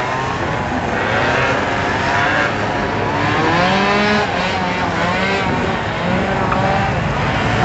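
Several motor scooter engines revving together, their pitches rising and falling and overlapping.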